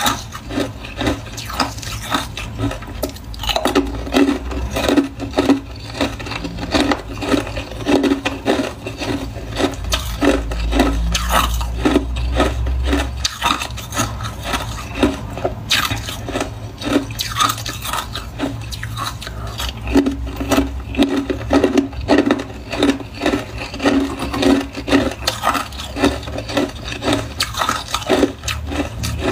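Frozen cola ice discs being bitten and chewed: a long run of crisp crunches, one bite after another.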